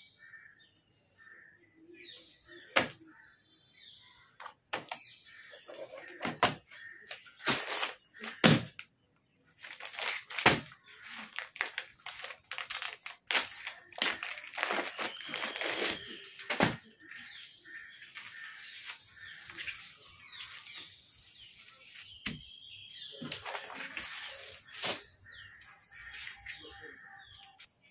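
Crinkling and rustling of a clear plastic suit bag and paper catalogue pages being handled, with scattered sharp clicks and taps, busiest in the middle of the stretch.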